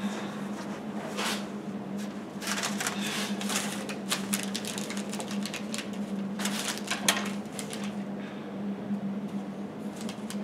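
Pencil scratching on paper and a sheet of paper rustling and being crumpled in short scratchy bursts, over a steady low hum.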